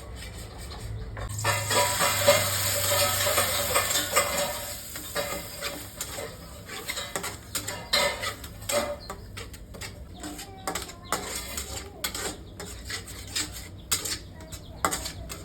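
Stir-frying in a hot pan: a loud sizzle swells up about a second and a half in and lasts a few seconds, then a spatula scrapes and knocks against the pan with quick, irregular clicks.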